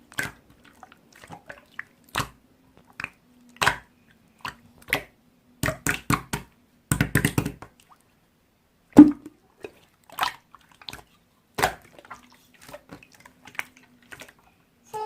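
Slime being squeezed and poked by hand, making irregular wet clicks and pops, with a quick run of them about seven seconds in and one louder pop around nine seconds.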